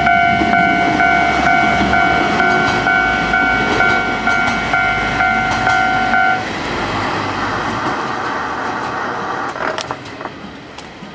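Level-crossing warning bell ringing with its repeating electronic tone, about two strikes a second, while a train runs past with a steady rail rumble. The bell stops about six seconds in, and the train noise carries on, slowly fading, with a few sharp clicks near the end.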